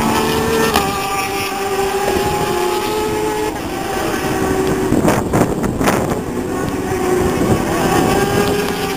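Superbike racing motorcycle engines running at high revs as bikes lap the circuit, several engine notes heard at once with slow rises and falls in pitch. A few brief rushes of noise come a little past the middle.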